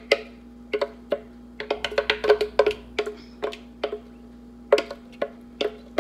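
A spatula knocking and scraping against the inside of a plastic Ninja blender pitcher as applesauce is worked out into a bowl: irregular hollow knocks, several a second, busiest about two seconds in.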